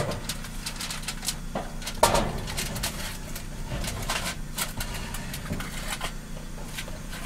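Clicks and knocks of an RV gas range's oven being worked by hand: a sharp knock at the start, a louder clatter about two seconds in, then scattered lighter clicks, over a steady low hum.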